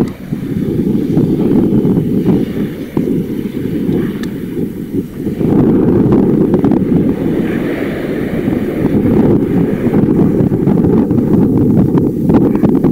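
Airbus A319 jet engines rumbling during the landing rollout, mixed with heavy wind buffeting on the microphone. The low rumble is loud and fairly steady throughout.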